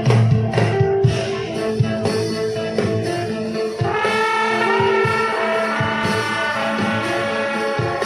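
Live band music with a steady drum beat; about four seconds in, a melody of held notes comes in over the beat.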